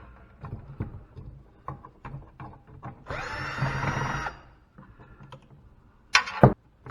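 Tool handling with light clicks, then a power drill-driver runs for about a second and a half, backing out a fastener. Near the end come two loud metallic knocks as a part is set down or pulled free.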